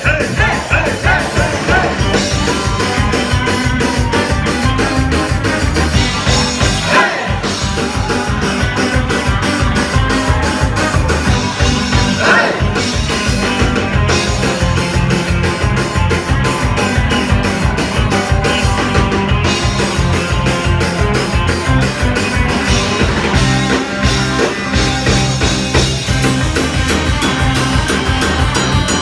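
Live rock band playing loudly with a steady, driving beat and some singing.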